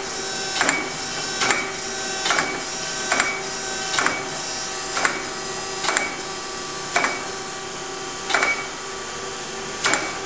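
A Chevalier FSG-1224AD hydraulic surface grinder is running with a steady hum from its spindle and hydraulic drive. A sharp clack sounds each time the reciprocating table reverses at its stops. The clacks come less than a second apart at first and spread to about a second and a half apart near the end.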